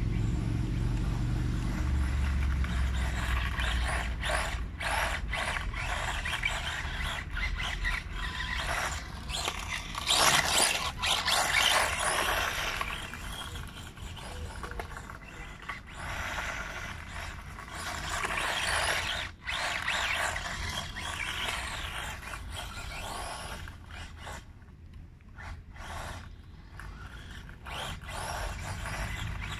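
1/8-scale radio-controlled Xrider Flamingo driving over loose gravel and dirt: a motor whine mixed with tyres scrabbling and scraping on the gravel. It grows louder as the model passes close, about ten seconds in and again around seventeen to twenty seconds, and fades as it drives away.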